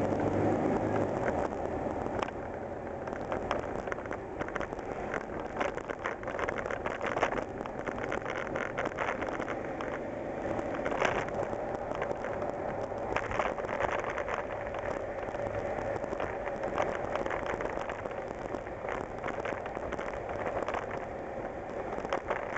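Inside the cab of a 1987 Ford Ranger pickup with the 2.9 L Cologne V6, driving: steady engine and road noise, with the engine pulling a little harder for the first few seconds. Many short clicks and crackles sound over it throughout.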